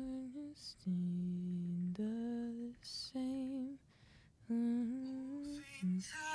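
The opening of a slow worship song played back: one voice sings long, held notes in separate phrases, with short gaps between them.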